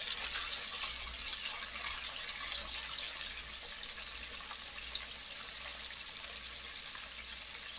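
Floured chicken pieces deep-frying in hot oil, a steady sizzling hiss of bubbling oil.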